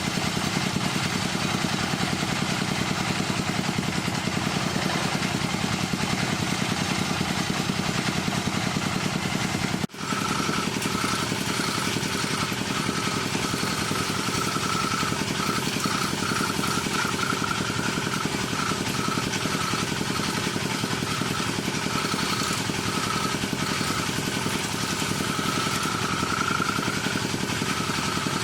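Wood lathe running steadily with a low hum, broken by a brief dropout about ten seconds in. After the break, a higher whine wavers in and out over the running lathe.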